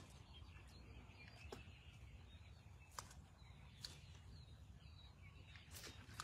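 Near silence: faint outdoor ambience with a low rumble and a handful of short, sharp clicks at irregular intervals.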